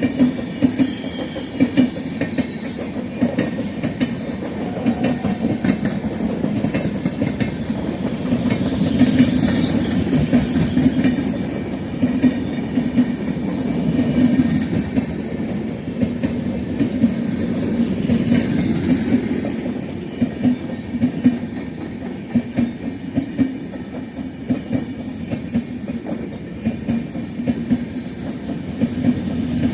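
Indian Railways passenger express train running past at speed, its coaches' wheels clattering steadily over the rail joints.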